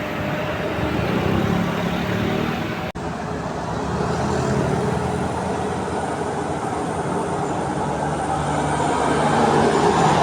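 Road traffic with heavy vehicles, likely buses: engines running and tyre noise. The sound drops out briefly about three seconds in, where the recording is cut.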